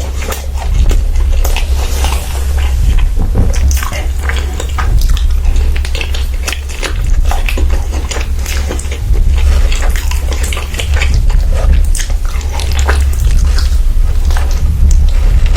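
Close-miked chewing and biting of food, with many short irregular mouth clicks, over a steady low hum.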